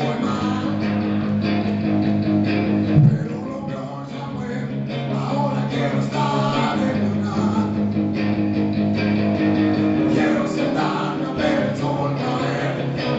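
Live electric guitar playing through an amplifier, holding low sustained notes, with a sharp thump about three seconds in.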